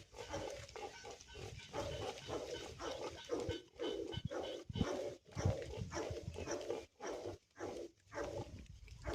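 Domestic pigs grunting: a run of short grunts in quick succession, with brief pauses.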